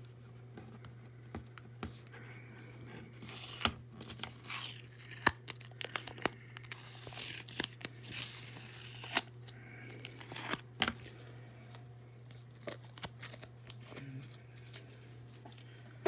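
Mailed packaging around trading cards being torn and crinkled by hand, in irregular bursts with sharp clicks, over a steady low hum.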